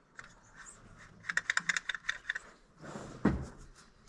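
Hand ratchet wrench clicking in a quick run of about ten clicks over a second, followed by a single dull thump.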